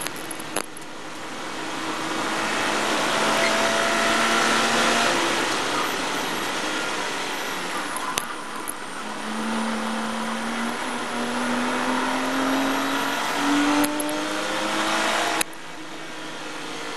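Porsche Cayman race car's flat-six engine heard from inside the cockpit, under heavy road and wind noise at high speed. The engine eases off as the car brakes for a corner, then climbs steadily in pitch as it accelerates out, and drops away sharply near the end.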